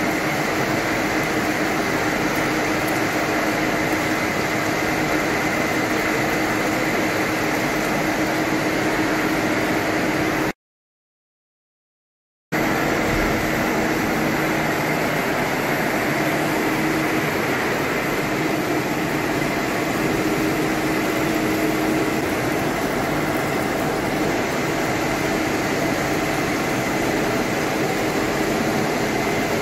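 PVS-45 jet-flushed wire-cut EDM machine running, a steady mechanical hum with a faint high whine and the wash of coolant jets pouring over the workpiece. The sound cuts out completely for about two seconds a third of the way through, then carries on unchanged.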